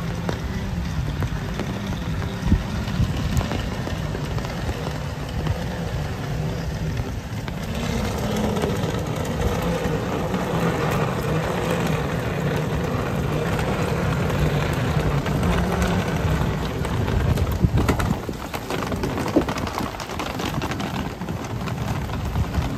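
Steady rain on wet pavement with city traffic. A vehicle engine runs in the middle stretch, and a couple of sharp knocks come near the end.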